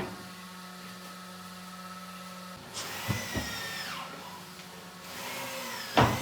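Small power tool running with a steady hum, then its whine falls in pitch as it winds down about three seconds in; near the end a rising whine is cut off by a sharp knock.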